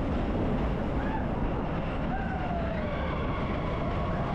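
Expedition Everest roller coaster train running along its track, heard from a seat on board: a steady rumble, with a few faint wavering high tones over it.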